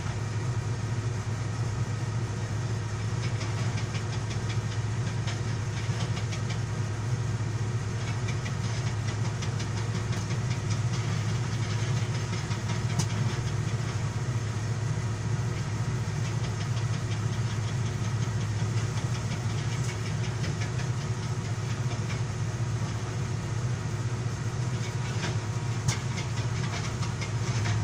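Komatsu 220 excavator's diesel engine running steadily, with a fast, dense rattle of blows from its hydraulic rock breaker hammering hard stone.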